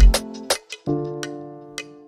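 Music: a chord struck about a second in that rings and fades, with light clicks over it.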